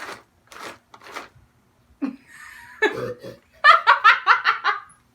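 A person laughing loudly: a quick run of about eight ha-ha bursts starting about three and a half seconds in, after some soft rustling and a short low grunt.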